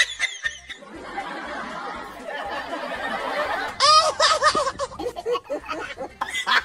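Several people laughing together, swelling into a louder burst of laughter about four seconds in.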